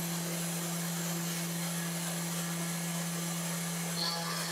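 CNC router spindle of a Sainsmart Genmitsu PROVerXL 4030 V2 running at a steady speed, a constant hum over a hiss, as the two-flute end mill is lowered toward the wood. There is a brief high chirp about four seconds in.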